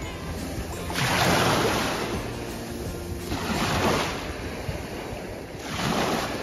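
Small sea waves breaking and washing up over sand, swelling three times: about a second in, at about three and a half seconds, and near the end. Faint music underneath.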